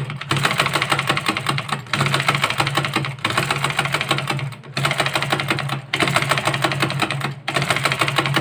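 Sewing machine running in bursts of about one and a half seconds with brief stops between, a loud rapid clatter over a steady low hum. The rattle comes from a machine that has not been oiled and has loose parts.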